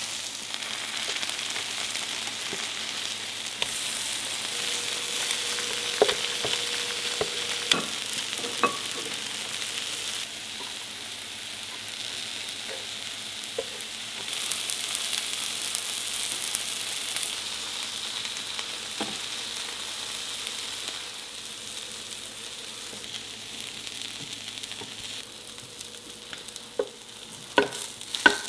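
Egg-battered fish fillets (saengseon-jeon) sizzling in oil on a griddle, a steady high hiss. It is broken by a few sharp clicks and scrapes of a spatula turning them, with a cluster of clicks near the end.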